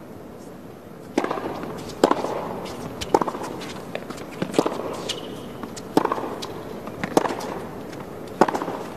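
Tennis ball being struck by rackets and bouncing on a hard court during a baseline rally: about seven sharp cracks, spaced roughly a second or more apart, starting about a second in.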